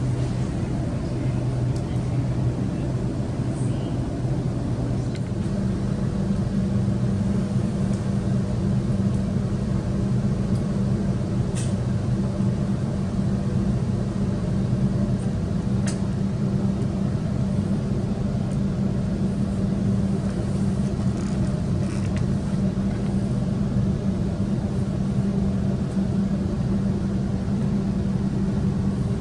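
Interior running noise of a Sydney Trains double-deck electric suburban train: a steady rumble with a low hum that steps up in pitch about five seconds in and then holds.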